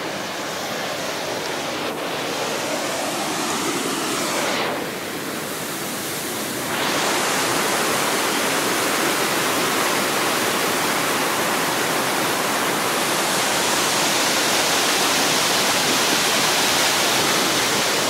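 Steady rush of Laxapana Falls' water pouring over the rock edge and crashing below; it dips briefly and then grows louder about seven seconds in, staying loud.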